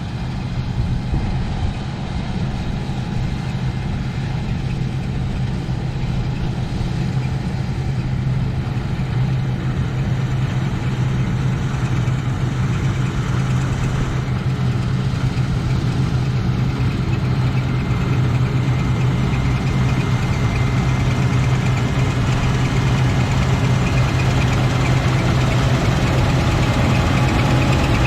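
Claas Lexion 420 combine harvester running steadily, a deep engine note with a faint high whine, growing gradually louder over the stretch.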